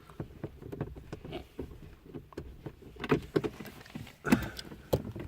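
Irregular small clicks and a few louder knocks of a screw being fitted by hand into the plastic dashboard to secure the instrument cluster.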